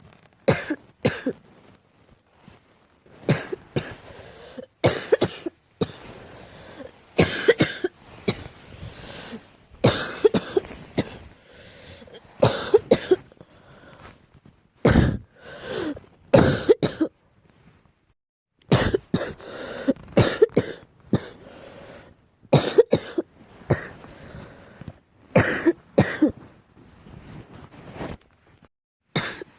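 A person's barking cough in repeated bouts of several short coughs, with brief pauses between bouts: an allergic cough, which the uploader puts down to a cat allergy.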